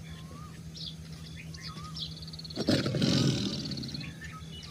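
A tiger roar, once, breaking in suddenly about two and a half seconds in and fading over about a second and a half, over birds chirping.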